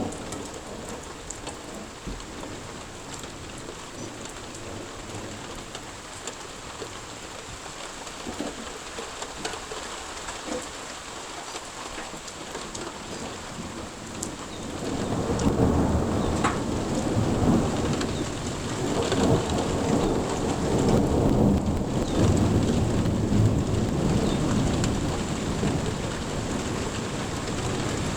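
Steady rain falling. About halfway through, a long low roll of thunder rumbles in, swelling and lasting to the end, much louder than the rain.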